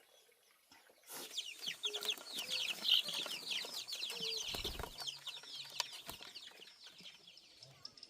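A flock of chickens cheeping: many short, high, falling chirps overlapping, starting about a second in and thinning out near the end. A dull thump comes about halfway through.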